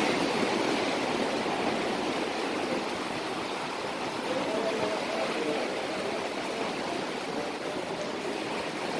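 Steady rush of rain falling on the sea and surf washing over rocks along the shore.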